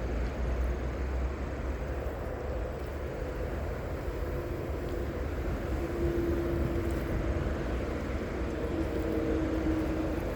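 Steady low rumble of distant engine noise, with a faint droning hum through the second half.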